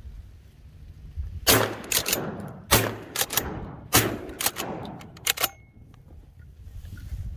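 Shotgun shots: three loud blasts about a second and a quarter apart, with fainter shots between and after them, each trailing off in an echo across the water.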